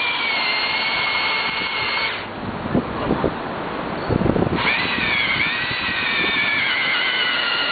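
Power drill boring into a concrete sidewalk, its motor whining and dipping in pitch under load as the bit works against hard aggregate. It stops about two seconds in, a few knocks follow, and it starts again about four and a half seconds in.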